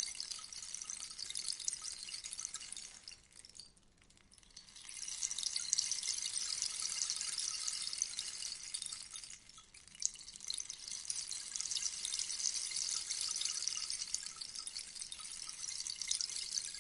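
Rainstick tipped over so its filling trickles down inside, a dense high patter like falling rain. It fades out about three seconds in and starts again as the stick is turned, then dips briefly near ten seconds before running on.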